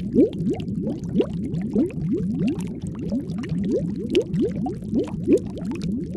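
Underwater air bubbles rising and bubbling: a steady stream of short bloops, each rising in pitch, several a second.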